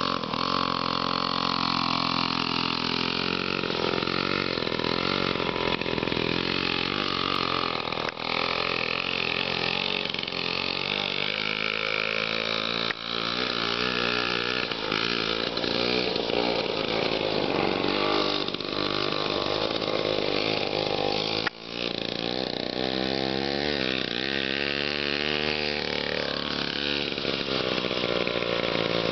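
1950s Power Products two-stroke engine on a motorized tricycle running under load as it is ridden, its pitch rising and falling as the throttle is opened and eased off, with a few brief dips in loudness.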